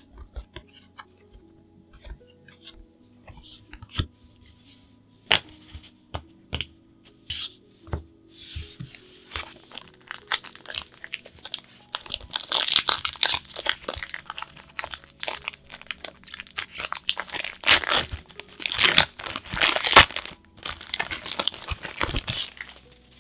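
Card-sleeve pack wrapper being torn and crinkled open by hand: scattered clicks and rustles at first, then a long, dense stretch of tearing and crinkling that stops shortly before the end.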